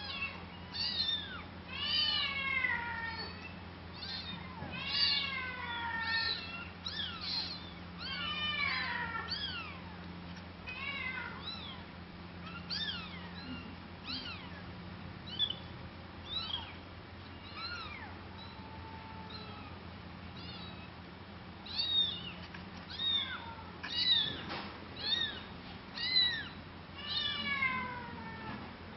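A cat making many short, high-pitched mews in quick runs, several a second at times, sparser and quieter through the middle stretch. A steady low hum runs underneath.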